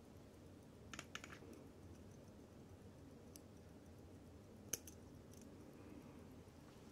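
A few light metallic clicks over near silence: steel tweezers touching the movement and case of a vintage Ricoh automatic wristwatch. There is a quick cluster about a second in, and the sharpest click, a double one, comes about two-thirds of the way through.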